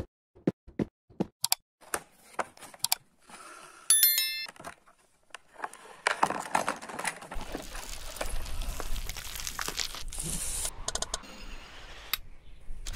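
A few sharp clicks and taps, a brief bell-like ring about four seconds in, then from about six seconds a continuous crinkling and rustling of a toy finger bicycle's plastic-windowed cardboard box being handled and opened.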